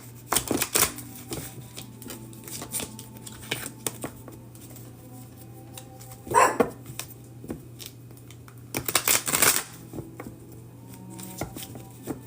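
A deck of cards being shuffled in three short spells, near the start, about six seconds in and about nine seconds in, over faint background music.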